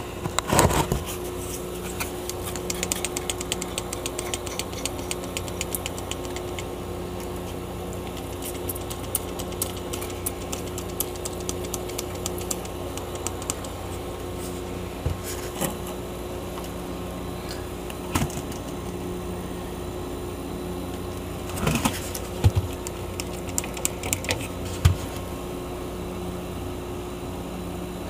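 Refrigerator compressor running with a steady hum. Irregular light ticks and taps sound over it, mostly in the first half, with a short cluster of knocks a little past the middle.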